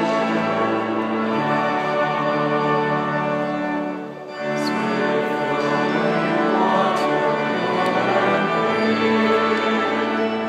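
A hymn sung by choir and congregation with pipe organ, in held, sustained notes. It breaks off briefly about four seconds in, between lines, then goes on.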